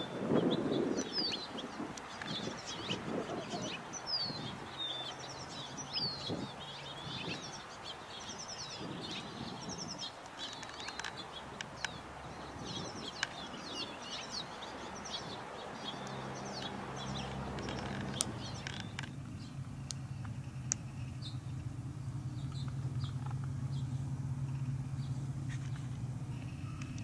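A flock of small finches twittering and chirping, with many short calls overlapping. About 18 seconds in the chirping fades, and a steady low hum takes over.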